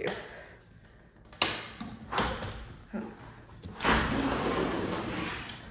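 A bedroom's patio door being unlatched and opened: a sharp click of the latch about a second and a half in, a couple of knocks, then a longer rushing noise as the door swings or slides open.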